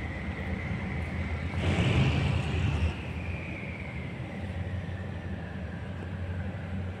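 Railway station sound of idling diesel train engines: a steady low hum, with a high whine that swells about two seconds in and then slowly falls in pitch.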